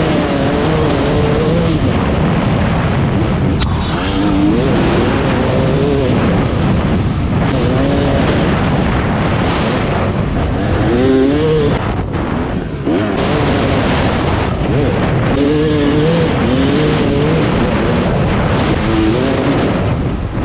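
Yamaha YZ250 two-stroke dirt bike engine revving up and down as the throttle is worked, easing off briefly about twelve seconds in.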